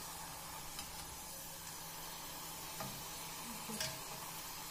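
Dough rose of khvorost deep-frying in hot oil in a saucepan, a steady sizzle, with a few light clicks of a wooden spatula against the pan as the pastry is turned over.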